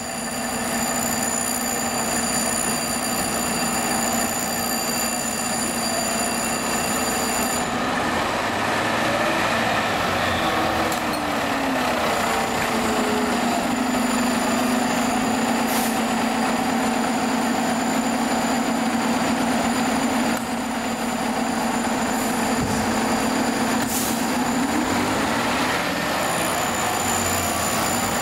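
FDNY fire engine's siren and air horn sounding continuously as the engine pulls out and passes, a steady horn-like tone with a few gliding sweeps in pitch near the middle.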